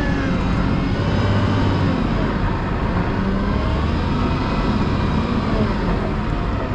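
Volvo L90H wheel loader's diesel engine running steadily while plowing snow, a heavy low rumble whose pitch drifts slightly up and down with the revs.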